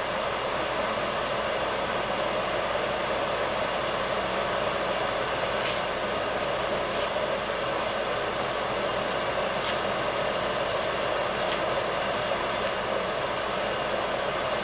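Steady whooshing background noise like a running fan, with a few faint light taps in the second half.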